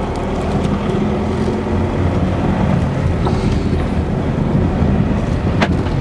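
Audi saloon car driving slowly on a dirt lane, its engine running with a steady low hum under a wash of road and wind noise. There is one short click near the end.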